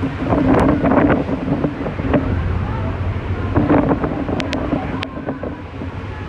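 Star Ferry running, a steady low engine hum that swells twice, with wind buffeting the microphone. Scattered knocks and a few sharp ticks come through, the ticks a little past the middle.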